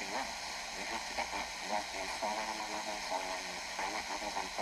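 Steady hiss of a weakly received FM radio station, with a man's talk-radio voice faint and muffled beneath the static.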